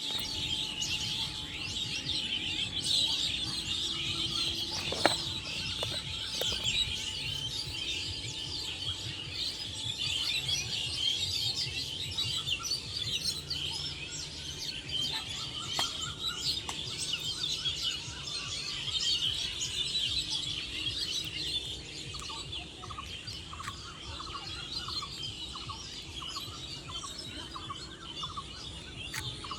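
Many small birds chirping densely together in a continuous chorus. A single sharp click comes about five seconds in. Over the last third, one bird repeats a lower call about twice a second.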